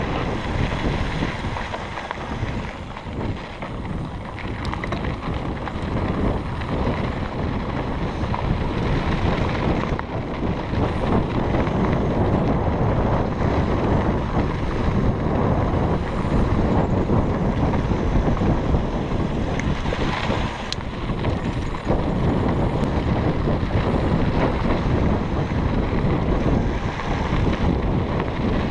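Wind buffeting the microphone of a camera on a mountain bike riding downhill, over a steady rumble of tyres rolling on a dirt trail, with a few sharp knocks and rattles from the bike.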